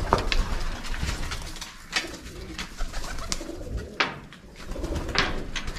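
Domestic pigeons cooing in their loft, with a few sharp clicks and knocks, the loudest at the very start and about four seconds in.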